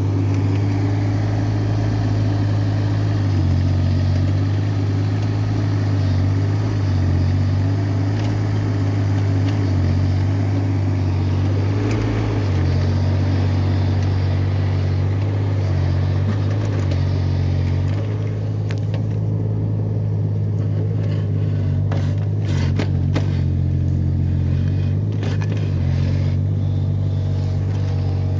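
Mini excavator's engine running steadily, a deep constant drone. Over the last third there are several short sharp knocks and scrapes as the bucket digs into the soil.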